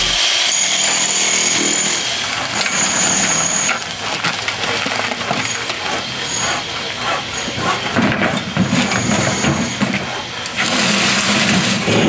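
Building demolition work: a run of irregular knocks, scrapes and rubble clatter, with a louder stretch of rushing noise near the end.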